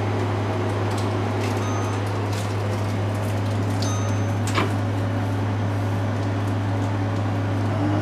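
Countertop microwave oven running: a steady low hum, with a few faint light clicks.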